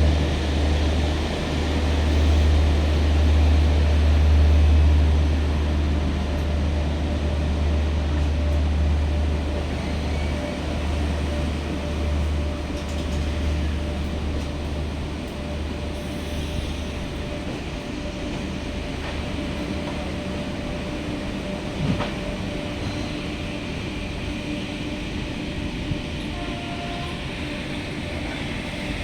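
Indian Railways passenger train running past, with a deep rumble that fades over the first dozen seconds into a steadier, lighter rolling noise. A single sharp click comes about 22 seconds in.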